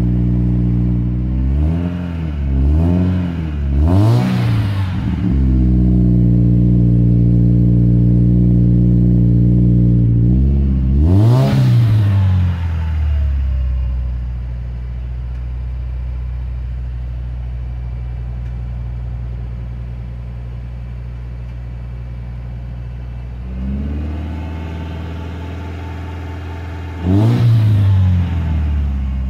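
A Subaru Crosstrek's flat-four boxer engine, idling cold and being blipped through a Nameless Executive 5-inch axleback muffler. There are three quick revs a couple of seconds in, one about eleven seconds in and one near the end. The idle gets quieter after about fourteen seconds.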